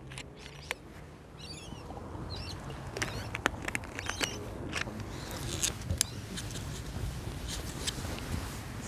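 A prayer congregation stirring right after the closing salam: rustling, scattered light knocks and a low murmur that grows from about two seconds in, with several short high squeaky chirps.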